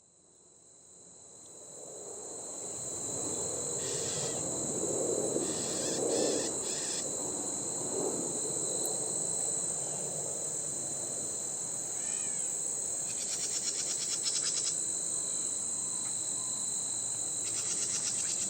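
Steady high-pitched chorus of crickets and other insects, fading in over the first few seconds, with short bird chirps and trills breaking in several times.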